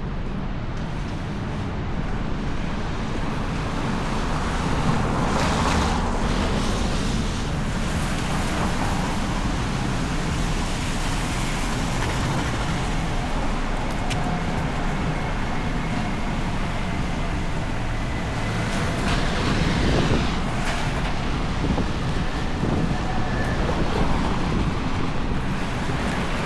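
City street traffic: cars passing steadily, with wind buffeting the microphone as a low rumble. A vehicle passes closer and louder about six seconds in and again about twenty seconds in.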